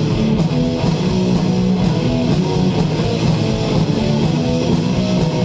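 Rock band playing live: electric guitars strumming over drums, with no singing.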